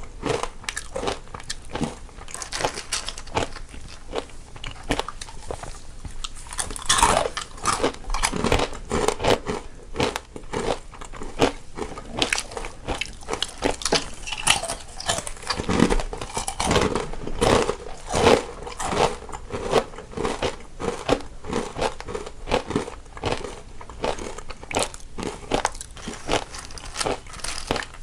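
Two people biting and chewing crunchy snacks close to the microphone, one on each side of the stereo image, with dense, irregular crunches.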